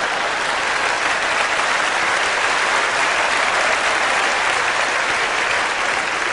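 Live audience applauding steadily at the end of a stand-up comedy routine.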